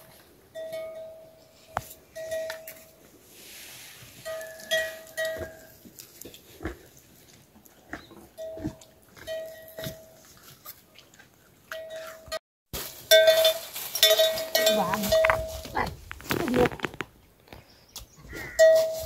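A livestock bell clanking irregularly, one short ringing note at a time with uneven gaps. The notes come denser and louder after a brief break about two-thirds of the way through.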